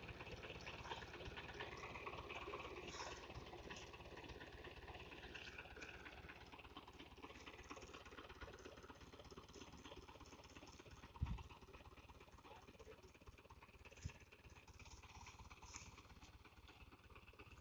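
Mahindra 575 DI tractor's direct-injection diesel engine running faintly and steadily at low speed as the tractor creeps forward with a loaded trolley. Twice, about three seconds apart, a brief low thump.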